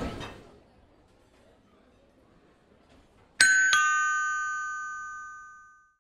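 After about three seconds of near silence, a two-note ding-dong chime: a higher note, then a lower one a third of a second later, both ringing out and fading away over about two and a half seconds.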